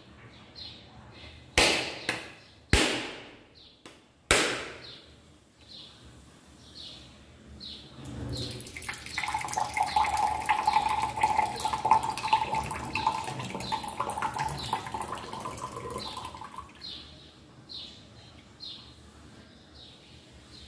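Three sharp knocks in quick succession, then water running from a tap into a vessel for about eight seconds, stopping near the end. A bird chirps repeatedly throughout.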